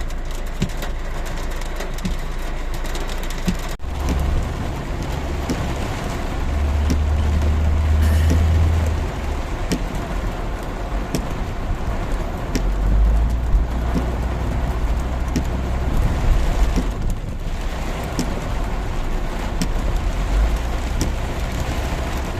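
Heavy rain pouring, with a car's engine and tyres running low underneath, swelling a few times as it drives through the storm.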